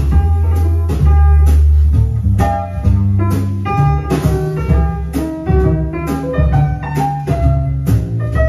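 Music played from a vinyl record through a hi-fi system, the record tracked by a My Sonic Lab Eminent GL moving-coil cartridge: plucked guitar notes over a deep, steady bass line.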